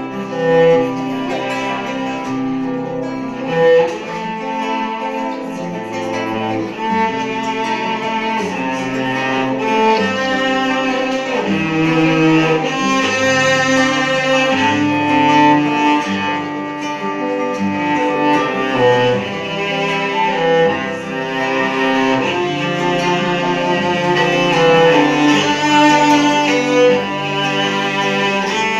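Instrumental music led by a bowed string instrument, cello or violin, with accompaniment and a moving bass line, played as a sequence of held notes.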